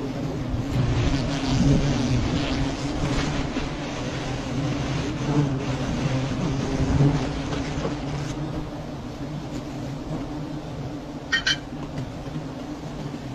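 Buzzing of a large swarm of wild honeybees stirred up around their exposed comb, a steady low drone. A brief sharper sound comes about eleven seconds in.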